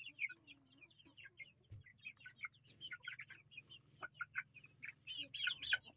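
Young Aseel (Indian game) chicks, about eight weeks old, pecking feed from a hand: faint, scattered quick taps and soft high peeps.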